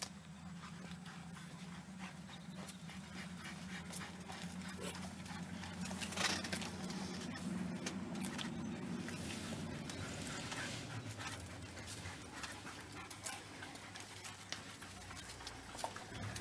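African wild dogs feeding on an impala carcass: irregular crackles and crunches of meat and bone being torn, with the dogs' panting and soft whimpering calls. A steady low hum sits underneath, strongest in the first half.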